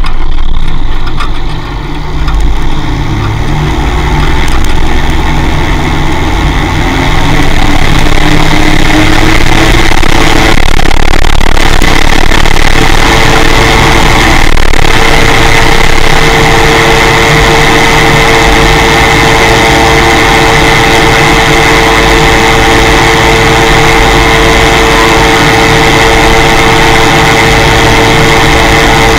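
Ultralight aircraft engine and propeller running up to takeoff power. The pitch climbs over the first several seconds, then holds a loud, steady tone through the takeoff roll and climb-out.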